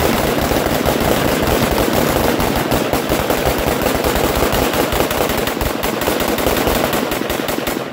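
Several guns firing rapidly at once, a dense unbroken volley of shots that stops abruptly near the end.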